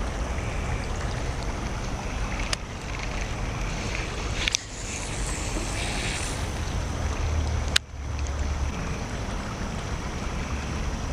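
Steady low rushing noise with three sharp clicks, about two and a half, four and a half and eight seconds in.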